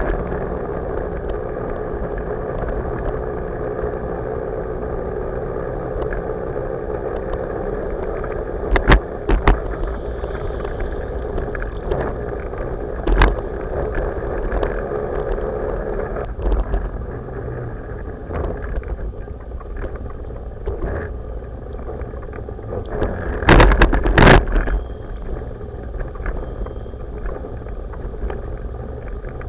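Evolve electric skateboard rolling along a paved path: a steady rumble from its wheels and drive, broken by sharp knocks from bumps in the surface about nine, thirteen and twenty-four seconds in.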